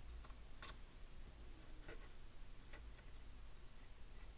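A few faint, light ticks and scratches from small hand tools working on a circuit board during desoldering, over a low steady hum.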